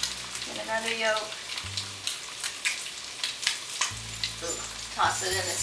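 Turkey bacon and potatoes frying in pans on a gas stove: a steady sizzle with frequent small crackles of spattering fat.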